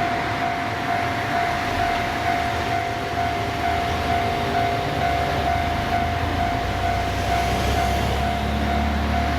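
JR Freight EF200 electric locomotive hauling a freight train, heard as a low rumble that grows stronger in the second half as it draws near. A steady high tone sounds throughout.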